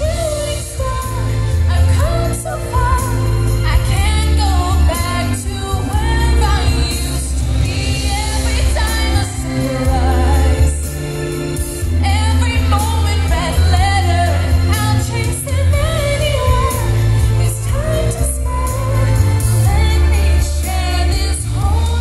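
A woman singing live into a handheld microphone over musical accompaniment with a heavy, steady bass, amplified through a stage PA.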